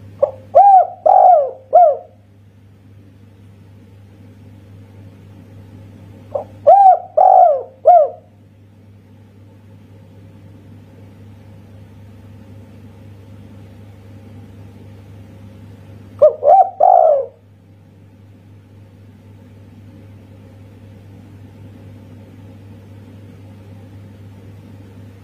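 Spotted dove (tekukur) singing its 'kuk satu' song: three phrases of three or four coos each, several seconds apart. A steady low hum runs underneath.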